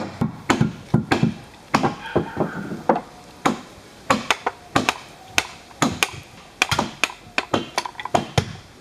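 Wooden mallet striking a wood chisel into boat timber: sharp, hollow wooden knocks about two to three a second, some in quick pairs.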